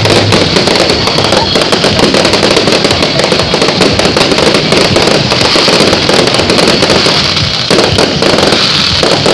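Fireworks display: a loud, dense, unbroken barrage of rapid bangs and crackling.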